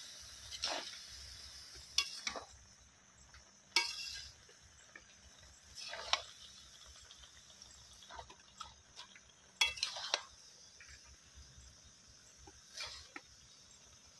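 A metal spatula scraping and turning shredded cabbage in a large metal wok, a sharp scrape or clink against the pan about every two seconds, over a faint steady hiss.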